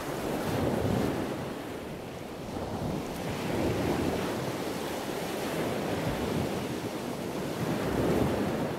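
Sea surf washing onto a sandy beach, a steady rush that swells and ebbs slowly, with wind buffeting the microphone.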